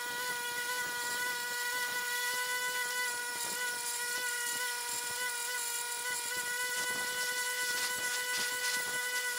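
Bench-mounted wire wheel running with a steady, unchanging whine while a steel plate is held against it, the wires scratching and hissing on the metal as they brush off leftover zinc from acid-stripped galvanizing.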